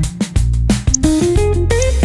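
Background music: guitar-led instrumental with plucked notes over a steady bass and beat.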